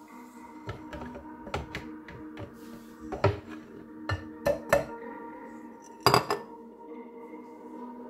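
A dozen or so irregular knocks and clinks of kitchenware against a blender jar as chickpea flour is tipped in, the loudest a brief rattle about six seconds in. Soft background music plays underneath.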